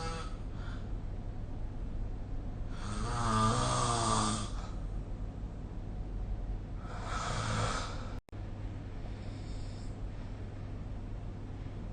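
A person snoring in sleep: two snores about four seconds apart, the first longer and louder with a wavering, fluttering pitch, over a steady low hum. The sound cuts out for an instant about eight seconds in.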